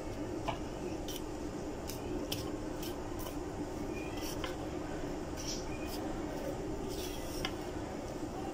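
A silicone spatula stirring a dry flour mix in a bowl: irregular soft scrapes and taps against the bowl, a few each second, over a steady low hum.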